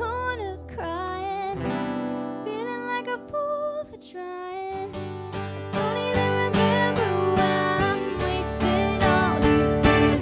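Two acoustic guitars strummed and picked in a live acoustic country-pop song, with a woman singing over them. The playing swells louder about six seconds in.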